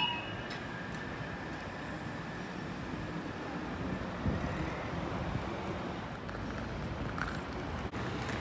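Steady background of road traffic and street noise at a level crossing with the barriers down. The crossing's warning alarm tones cut off in the first instant.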